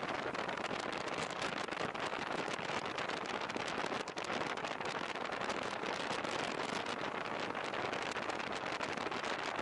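Action-camera recording from a moving motorcycle on a wet road: a steady rush of wind and road noise with dense crackling throughout.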